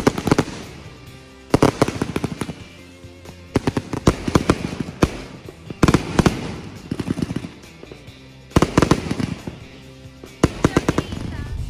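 Fireworks going off in about seven quick volleys, each a rapid string of sharp cracks and bangs, coming a second or two apart.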